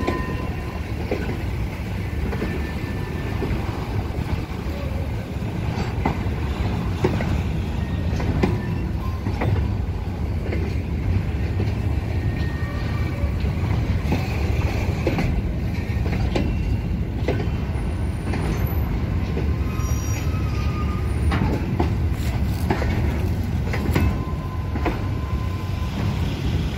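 Container flat wagons of a freight train rolling past close by: a steady rumble of steel wheels on the rails, with clicks and knocks as the wheels pass over the rail joints.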